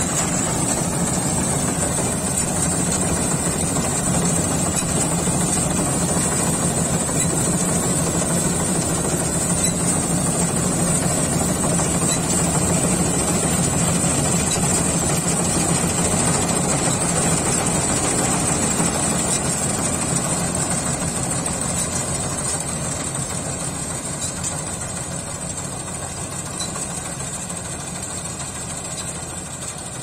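Dasmesh combine harvester running while cutting paddy: a steady diesel engine and machinery drone with a thin high whine over it, growing fainter over the last third as the machine moves away.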